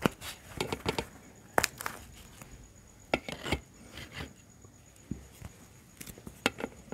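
Close-miked tearing and eating of crisp bhakri flatbread: irregular clusters of sharp crackles and crunches.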